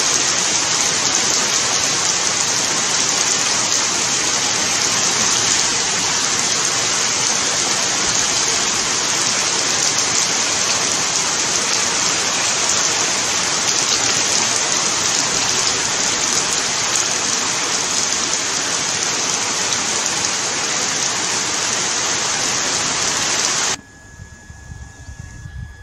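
Heavy rain pouring steadily, a dense even hiss that cuts off suddenly near the end.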